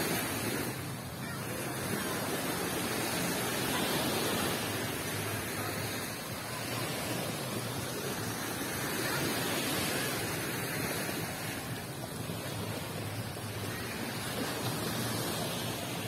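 Small surf washing onto a sandy beach, mixed with wind buffeting the phone's microphone: a steady rushing that slowly swells and eases every few seconds.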